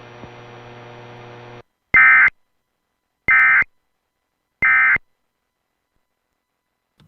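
Three short bursts of EAS digital (SAME) data tones, evenly spaced about 1.3 seconds apart, sent over AM radio: the end-of-message (EOM) code that closes an Emergency Alert System test. Before the bursts, a low steady hum ends about one and a half seconds in.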